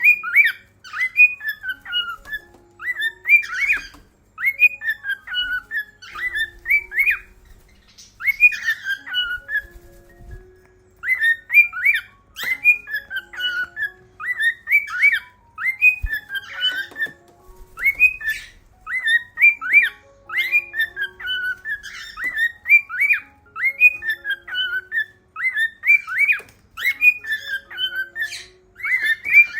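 Cockatiel whistling its song: quick, repeated warbling phrases that swoop up and down, with a few brief pauses.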